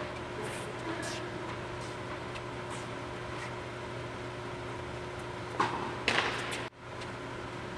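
Steady hum of an indoor tennis hall's air handling, with a few faint ticks. A short cluster of sharp hits comes about two-thirds of the way in: tennis balls struck by rackets during a rally. The sound then cuts out for an instant.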